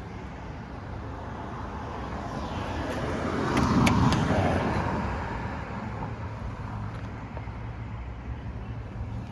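A car passing by on the road: its noise swells to a peak about four seconds in and fades away over a couple of seconds, with a couple of sharp clicks near the peak. A steady low hum runs underneath.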